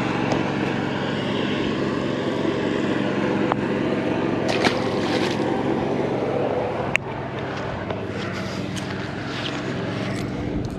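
A steady motor drone with a few sharp clicks.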